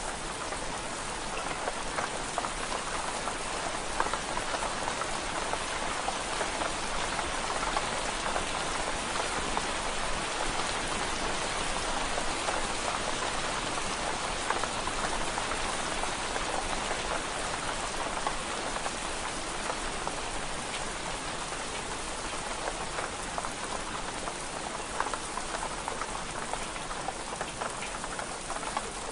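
Steady rain on window glass: a dense, even patter of drops with no letting up.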